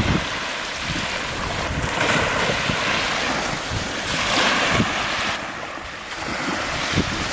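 Sea waves washing in, swelling in two louder surges about two and four seconds in, with wind buffeting the microphone.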